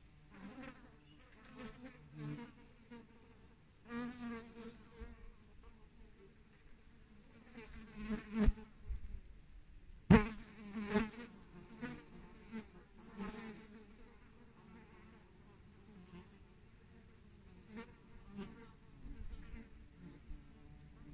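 Flying insects buzzing in passes that come and go, the pitch wavering as they fly about. Two sharp knocks, about eight and ten seconds in, are the loudest sounds.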